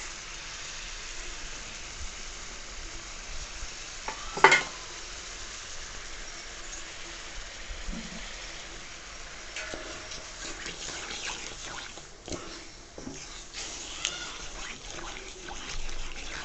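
Sugar syrup being made: a pan of sugar in boiling water hissing steadily, with a wooden spatula stirring and scraping through the wet sugar in the second half. One sharp knock about four and a half seconds in is the loudest sound.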